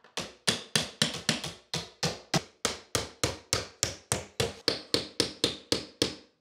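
Claw hammer striking a nail punch to set finishing nails into tongue-and-groove pine floorboards: a steady run of about two dozen sharp taps, roughly four a second, that stops just before the end.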